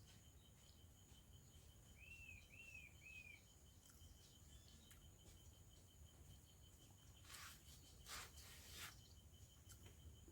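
Faint outdoor background: a bird chirps three times in quick succession about two seconds in, over a steady pulsing insect trill. A few brief soft rustling noises come near the end.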